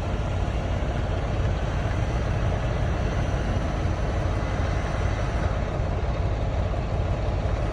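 Semi-truck diesel engine running, heard from inside the cab as a steady low rumble.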